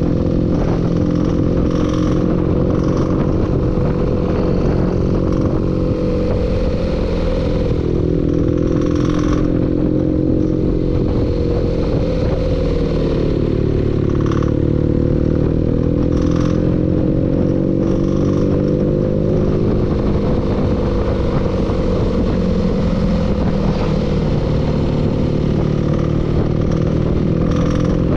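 Engine running with a knock, its speed sagging slightly and picking back up around the middle, with a few sharp clatters over the steady running.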